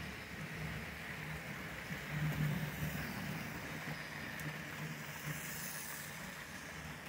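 Model railway locomotives running on a layout: a steady electric motor hum with the rolling rattle of wheels on track, swelling for a moment about two seconds in.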